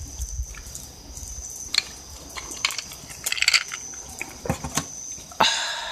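Insects trilling steadily at a high pitch, with scattered small crackles and clicks. Near the end comes a louder ringing clink, like a drinking glass being knocked or set down.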